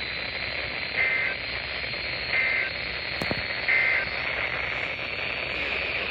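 Weather radio receiver hissing with static, broken by three short EAS/SAME digital data bursts a little over a second apart: the end-of-message code that closes the Required Weekly Test. A single sharp click between the second and third bursts.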